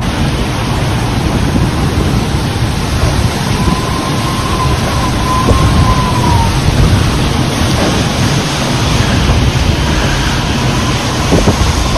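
Tropical cyclone wind and rain: a loud, steady rush of noise, heaviest in the low end, with a thin wavering whistle about midway and again near the end.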